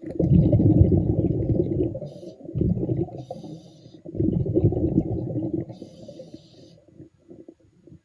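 Scuba diver breathing underwater: three bursts of low bubbling rumble from exhaled bubbles, each followed by a short hiss from the regulator on the in-breath.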